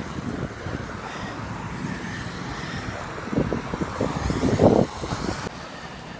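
Steady road and engine noise of a car being driven, with a cluster of knocks and thumps in the middle. The noise drops suddenly about five and a half seconds in.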